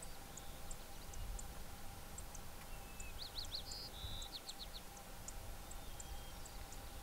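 Small birds calling outdoors: scattered short high chirps throughout, and a brief song of quick rising-and-falling notes with a few short whistles about three to five seconds in, over a low rumble.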